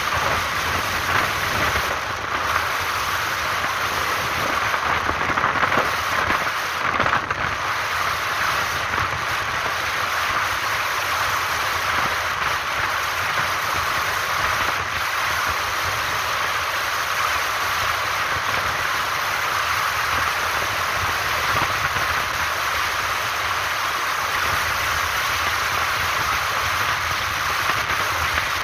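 Motorbike riding along an expressway: a steady rush of wind and road noise.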